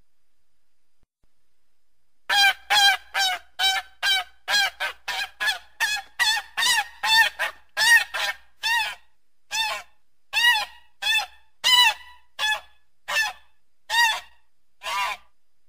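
A goose honking in a long series of short calls, starting about two seconds in. The calls come quickly at first, two or three a second, then slow to about one a second toward the end.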